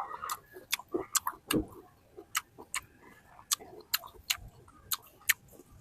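Sharp, irregular mouth clicks and smacks of someone eating juicy fruit, about two a second.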